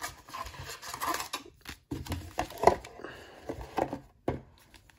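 Hands handling a cardboard trading-card hobby box and drawing out a wrapped pack: irregular rustling and scraping with a few light taps, the sharpest about two and a half seconds in.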